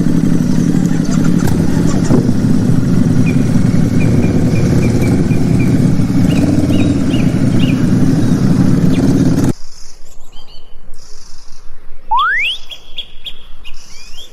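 A motor engine running steadily, cutting off suddenly about two-thirds of the way through. Then birds chirping, with two quick rising whistles near the end.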